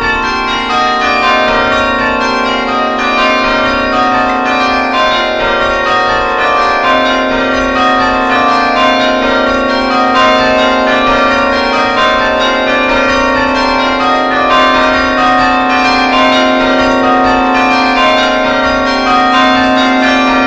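Church bells ringing continuously, several bells struck in quick succession so that their rings overlap.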